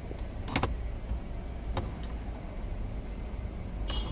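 A few short plastic clicks, the loudest about half a second in, as the wiring connector latch on the back of a car radio head unit is pressed and worked loose, over a low background rumble.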